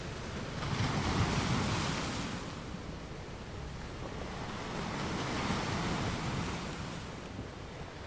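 Sea waves washing: a steady rush of surf that swells twice, once about a second in and again around five seconds in, each surge rising and falling over a couple of seconds.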